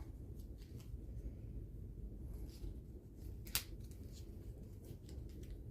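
Faint handling noises of small items and packaging: scattered light clicks and rustles, with one sharper click about three and a half seconds in, over a low steady room hum.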